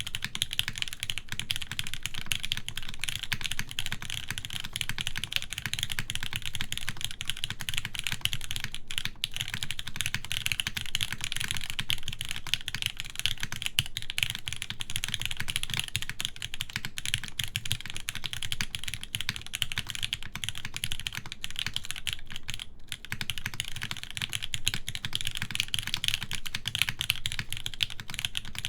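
Fast, continuous typing on a Kitsune mechanical keyboard with Gateron Oil King linear switches, GMK keycaps and a full aluminium plate in a top-mount case; the keystrokes run together into a dense clatter. Typing starts suddenly and pauses briefly about nine and twenty-three seconds in.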